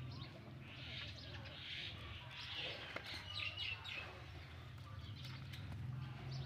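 Small birds chirping a few times, with several quick chirps about three seconds in, over a low steady hum.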